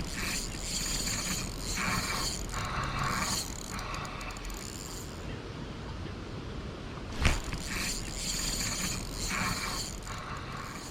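Spinning reel being cranked to retrieve line, its gearing whirring in two long spells, with a sharp snap about seven seconds in.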